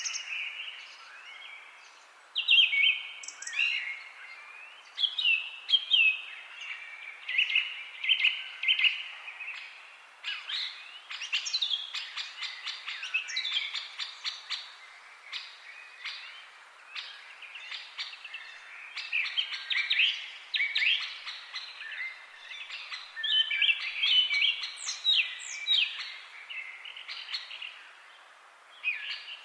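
Several songbirds chirping and trilling over one another, a continuous chorus of short quick calls and fast down-sweeping notes.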